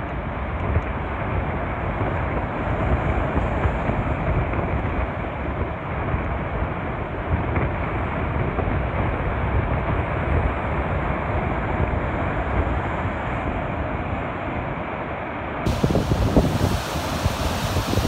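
Rough sea surf breaking and washing against a stone sea wall and its shingle foot, with strong wind buffeting the microphone. The wind rumble gets louder in gusts near the end.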